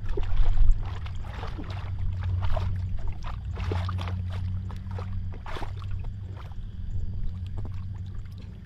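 Hands splashing and sloshing in shallow muddy water, with irregular splashes and squelches of mud as someone gropes for a catfish by hand, over a steady low rumble. The loudest splashing comes just after the start.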